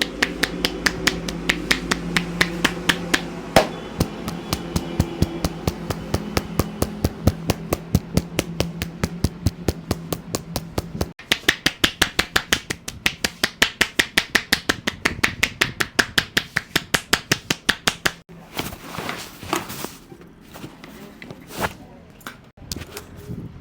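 Rapid, rhythmic percussive slaps of a barber's hands striking a customer's head during an Indian head massage, about three to four strikes a second. The run breaks off about halfway, picks up again, and the strikes turn scattered and irregular near the end.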